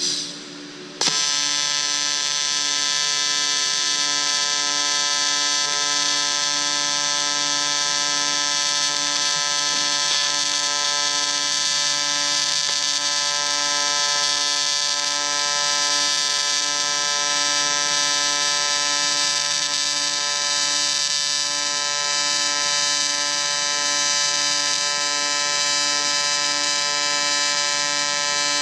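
TIG welding arc buzzing steadily, struck about a second in after a brief short sound, a high steady buzz of many tones with a hiss above it.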